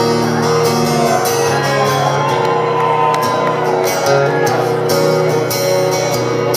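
Steel-string acoustic guitar played live through a hall PA, picking held chords, with scattered shouts from the audience.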